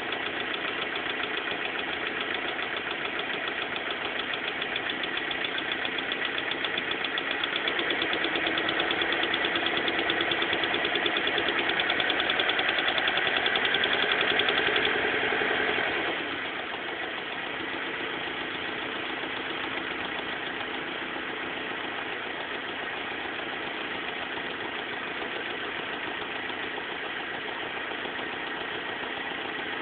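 BMW M42 four-cylinder twin-cam engine running at idle. Its revs rise a little about eight seconds in, hold, then fall back to a steady idle about sixteen seconds in.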